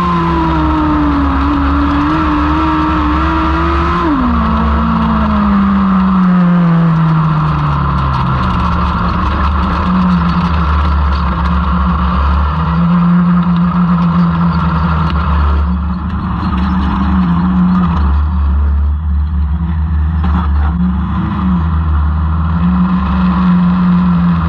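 1000cc lightning sprint cars racing on a dirt oval, their motorcycle engines running loud and steady with the pitch rising and falling through the laps. About four seconds in, one engine's pitch falls away over several seconds.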